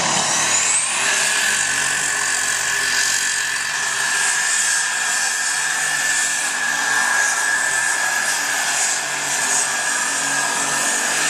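Heavy super stock pulling tractor's engine at full throttle, dragging the weight sled. A high whine climbs steeply in the first second, then holds steady over the engine's dense noise.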